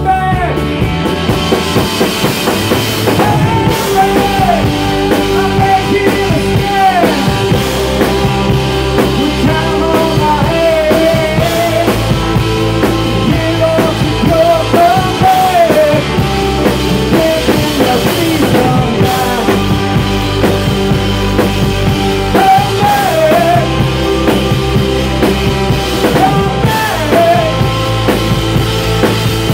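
Live rock band playing an instrumental passage: a lead electric guitar line with bent notes over drums.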